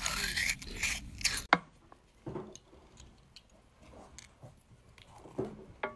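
A metal melon baller scraping and crunching into a raw beetroot. Then comes one sharp click, followed by a hand-held metal lever press squeezing cherries, with faint scattered clicks and soft wet squishes.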